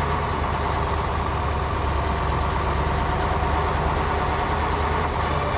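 A vehicle engine idling steadily with a low hum. Steady musical tones start coming in near the end.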